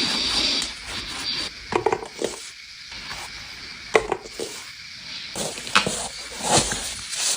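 Irregular handling noise: scattered knocks and clicks with rustling between them, the kind made by handling a shoe box and its contents.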